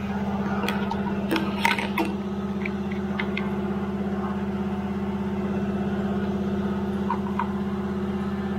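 Steady low machine hum with a fast buzz, with a few sharp metallic clinks from tools and bolts about one to two seconds in.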